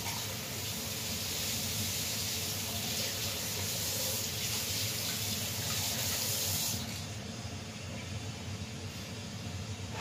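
Small saucepan boiling on a lit gas burner: a steady bubbling hiss, which softens a little about seven seconds in.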